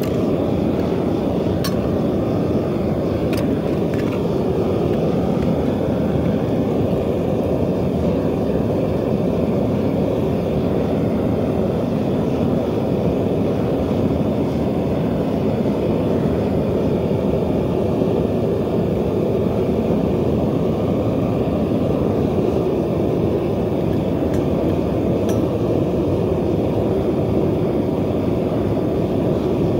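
Propane burner firing into a homemade bucket foundry furnace, a loud, steady, deep rushing noise. A few faint clicks come through it, about two and three seconds in and again near the end.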